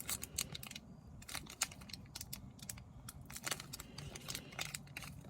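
Pokémon trading cards and their pack being handled: a run of light, irregular clicks and ticks.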